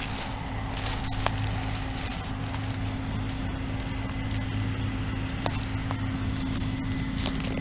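Footsteps crunching over dry soybean stubble and leaf litter, with scattered clicks and crackles, over the steady low drone of IH combines running in the field.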